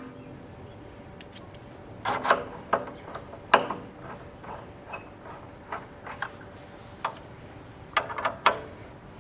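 Screws of a glass-gate magnet hinge's overlapping plate being done up with a hand tool: a handful of sharp metal clicks and taps at irregular spacing, in small clusters about two, three and a half and eight seconds in.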